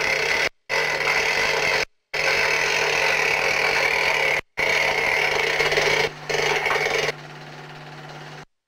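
Steady mechanical whirring with a constant low hum, cut by three brief dropouts into silence. About seven seconds in it falls to a quieter, thinner hiss.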